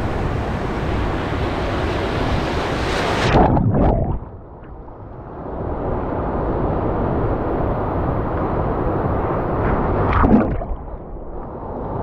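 Sea surf washing, with wind buffeting the microphone. About three and a half seconds in, the sound suddenly turns muffled and quieter for a couple of seconds, then a dull, steady wash of water carries on.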